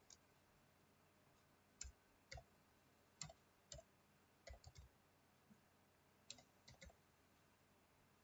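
Faint keystrokes on a computer keyboard: about a dozen separate, irregularly spaced key clicks as a line of text is typed, stopping near the end.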